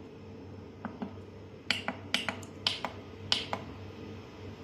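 Push buttons on a solar pump inverter's keypad being pressed, giving a series of sharp clicks, some in quick pairs, about eight in all. A steady low hum sits underneath.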